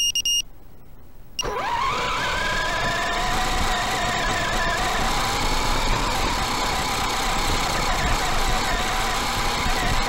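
A short electronic beep as the RC buggy arms, then about a second and a half in its battery-powered electric drive motor starts with a whine that rises in pitch and settles into a steady, wavering whine over loud hiss as the buggy drives across grass, heard through the onboard FPV camera's microphone.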